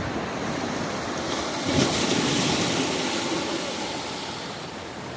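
Ocean surf breaking and washing up a beach, with wind on the microphone; the surf swells about two seconds in and then slowly eases off.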